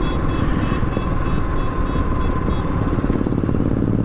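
Royal Enfield single-cylinder motorcycle engine running steadily while riding, with a dense low thudding. Over it, a quick run of faint high beeps repeats evenly and stops about two and a half seconds in.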